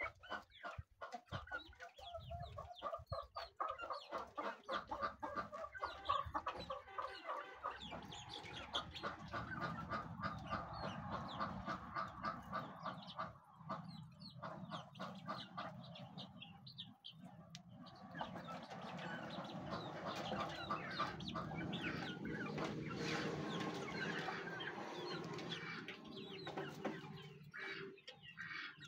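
A flock of chickens clucking softly while pecking greens from a metal basin, with many quick short sounds close together. A steadier rush joins in for several seconds in the second half.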